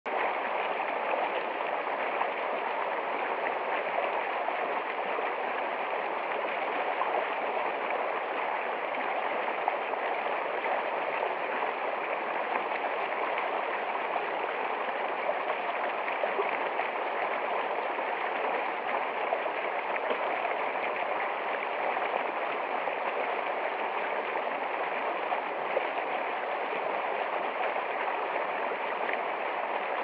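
Shallow mountain stream rushing steadily over rocks, heard from just above the water surface.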